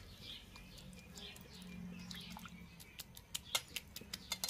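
A hand squeezing and pressing chopped banana flower in a steel bowl of cold water: faint wet squelching, then a quick run of small clicks and splashes near the end. Birds chirp faintly in the background.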